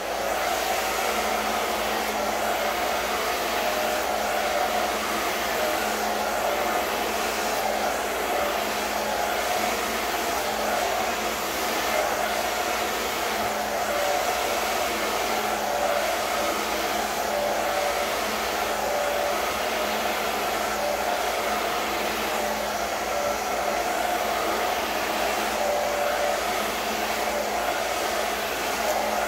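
Handheld hair dryer running steadily while blow-drying hair, its airflow an even, unchanging rush.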